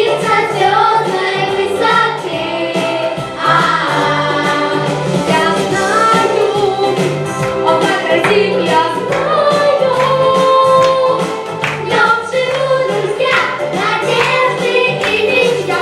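A song: several voices singing together over an instrumental backing with a steady bass line.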